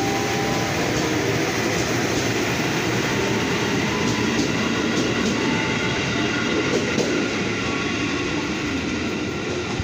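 KRL Commuter Line electric train pulling out and running close past: a steady rumble of steel wheels on the rails, with a few clicks over the rail joints midway, easing off slightly near the end as the last car goes by.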